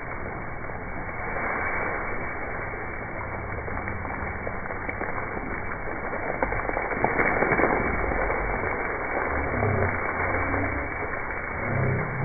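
Water spraying and splashing as an Asian elephant showers itself with its trunk, a steady hiss that swells about seven seconds in, over a low rumble.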